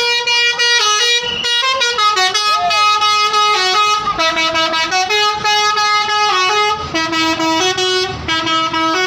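A tour bus's telolet horn, a set of musical air horns playing a tune: loud held notes that step up and down in pitch many times, with a few short breaks between phrases.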